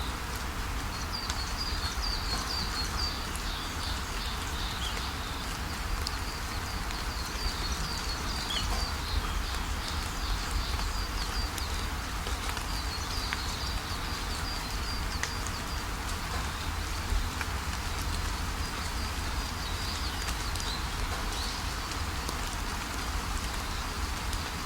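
Steady rush of a waterfall with small birds chirping over it in quick, high twittering runs that come and go.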